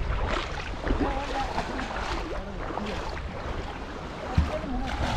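Water splashing and lapping around a wooden fishing boat in shallow water, with a stream of water falling from the boat's side into the river, and faint distant voices. A single low thump about four seconds in.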